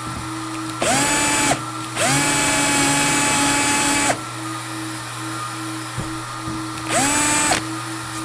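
Cordless drill with a countersink bit, bevelling a stripped screw hole in a plastic kayak hull. It runs in three bursts, short, then about two seconds long, then short near the end, each spinning up quickly to a steady whine. Under it a plastic welder, left running to preheat, hums steadily.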